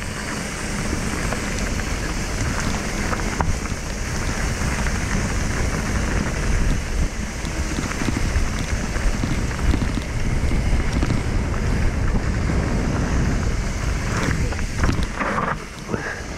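Wind rushing over the microphone of a mountain bike riding down a dirt trail, with the low rumble of the tyres and small knocks from the bike over bumps.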